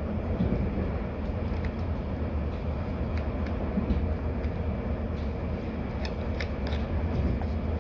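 Steady rumble inside a moving diesel passenger train, its wheels running along the rails, with a few light clicks near the end.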